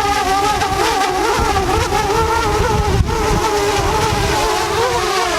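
DJI Mavic Air quadcopter's propellers whining, their pitch wavering constantly as the motors fight the gusts during a landing approach. Heavy wind buffeting rumbles on the microphone, and there is a single sharp click about three seconds in.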